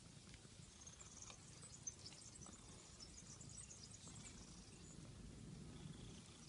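Near silence, with faint high-pitched chirping scattered through it and a low rumble underneath.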